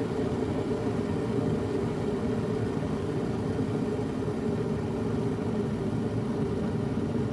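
Electric kettle heating water to the boil: a steady rushing noise of the water coming up to a boil.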